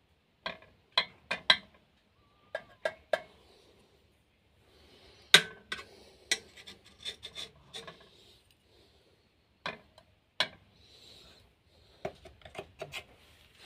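Handling noise of a tester screwdriver on metal: a dozen or so irregular sharp clicks and taps with light scraping in between, the loudest tap about five seconds in.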